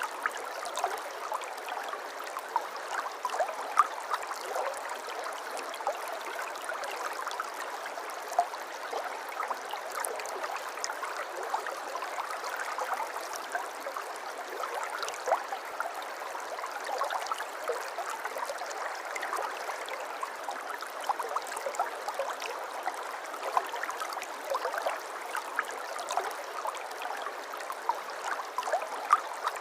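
Shallow river or stream flowing steadily, with a constant rush and many small splashes and gurgles throughout.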